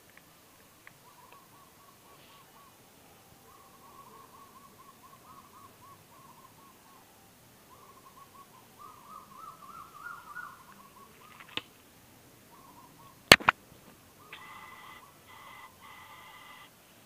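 A bird calls over and over in wavering, hooting notes that climb in pitch and grow louder. About 13 seconds in comes a single sharp bang with a quick second crack right after it, the loudest sound: a homemade PVC alcohol gun firing.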